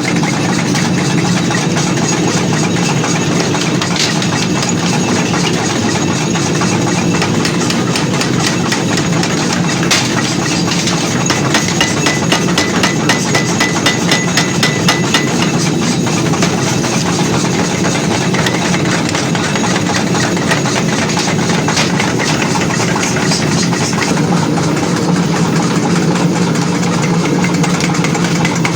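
Forging-shop machinery running steadily, with metal hammer strikes on hot iron, coming fast and close together through the middle of the stretch.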